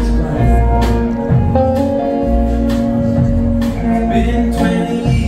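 Live band playing a passage without transcribed lyrics: electric guitars, electric bass and held keyboard tones over a steady drum beat.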